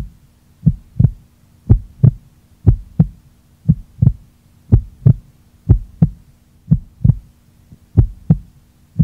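Heartbeat sound effect: paired low thumps, lub-dub, about one beat a second, over a faint steady hum.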